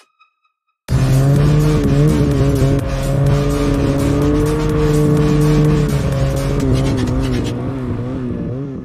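Snowmobile engine running at steady high revs under a hiss, its pitch wavering slightly; it starts abruptly about a second in after a brief silence and fades away near the end.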